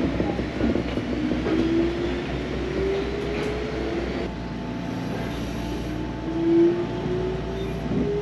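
Inside a JR Gotemba Line electric train as it accelerates: a steady rumble of the car, with the motor whine climbing in pitch. About four seconds in the whine breaks off, then starts again lower and climbs once more.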